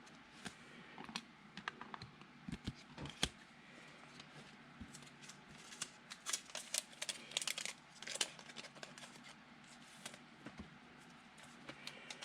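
Trading cards and plastic card sleeves handled on a table: irregular light clicks, taps and short rustles, with a busier patch of rustling about halfway through.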